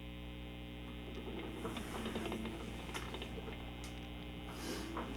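A quiet steady low hum with faint scattered clicks and soft rustles.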